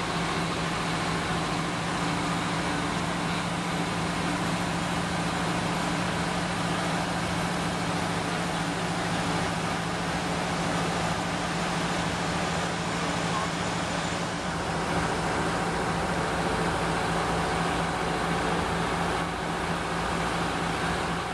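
Fire engines and other fire-scene machinery running steadily: a loud, constant mechanical drone with a low hum underneath.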